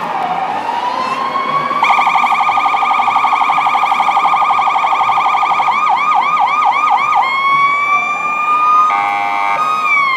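Electronic police siren on a Chevrolet police SUV, cycling through its tones. A slow wail dips and rises, then a fast yelp runs for about four seconds and gives way to five slower sweeps. A rising wail follows, then a brief horn-like blast near the end before the tone falls away.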